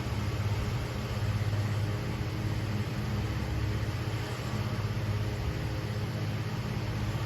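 Antique Signal 16-inch table fan running on high, pretty loud: a steady motor hum under the even rush of air pushed by its heavy blades.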